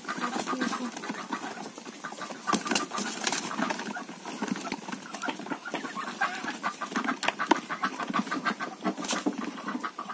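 Hens clucking among a mixed flock of chickens and Muscovy ducks, with many short knocks and scuffles of birds moving about the wooden shed.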